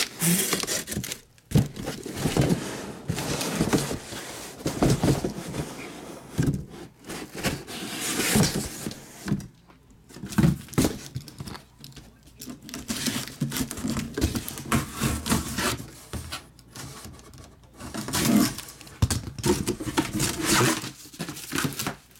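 Plastic shrink wrap being torn and crinkled off a sealed box of trading cards, with the cardboard box and packs being handled in short, irregular bursts.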